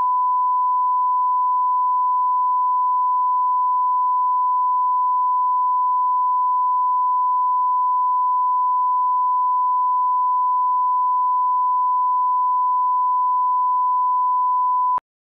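A 1 kHz line-up test tone: one steady, unbroken pure tone, the reference signal sent with colour bars for setting audio levels. It cuts off abruptly near the end.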